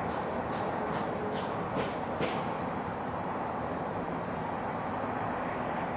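Steady outdoor background noise, with five faint clicks in quick succession in the first couple of seconds.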